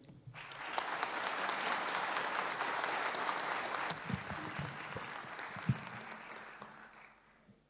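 Audience applauding in a hall, starting at once, full for a few seconds and then thinning out until it dies away just before the end. A few short low thumps come through about halfway through.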